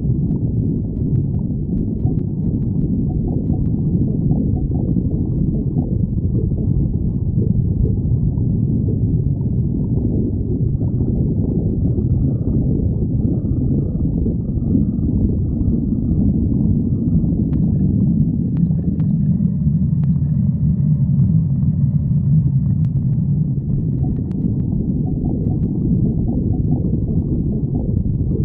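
A person's stomach growling: a continuous deep, muffled rumble that swells for a few seconds past the middle.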